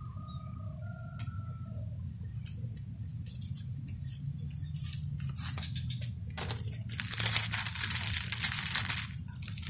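Plastic bags being crumpled and rustled by hand while fishing gear is packed up, a loud crinkling for about two and a half seconds near the end. A few faint bird chirps come before it.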